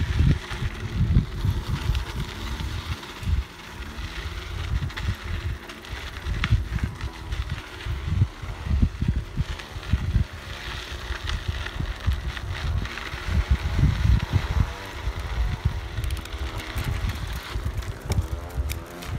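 Wind buffeting the microphone of a camera riding along on a moving mountain bike, with the bike's rattles and tyre noise over the bumpy dirt trail.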